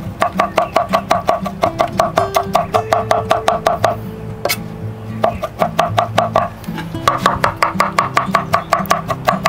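Knife chopping cooked carne asada into fine pieces on a cutting board: quick, even strokes about five a second, in runs broken by short pauses. Background music plays underneath.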